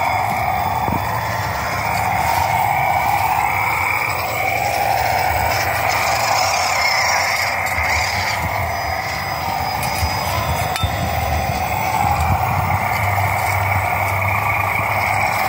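Electric motor and gearbox of a WPL C44KM RC crawler truck whining steadily as it crawls over rock, the pitch dipping and rising with the throttle a few seconds in.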